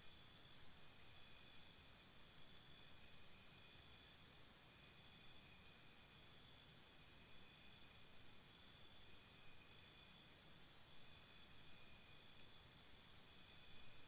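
Faint crickets chirping in rapid pulsed runs, a stretch at the start and another in the middle, over a steady high insect trill.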